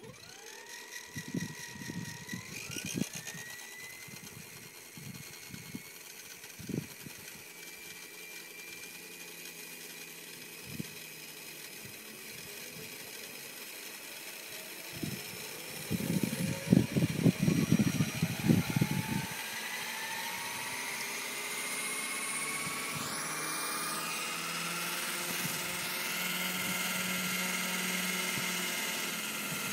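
Radio-controlled Bell 206L scale helicopter spooling up: a high motor whine starts suddenly, jumps up in pitch in the first few seconds, then climbs slowly and grows louder as the main and tail rotors gather speed. Low rumbles and thumps, loudest for a few seconds just past the middle, come and go over it.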